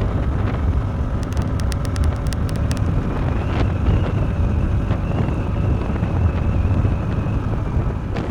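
Steady wind rush on the microphone over a 100 cc motorcycle's engine running while riding.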